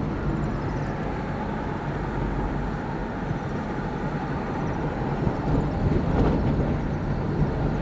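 Steady low engine drone with a constant low hum, holding level throughout.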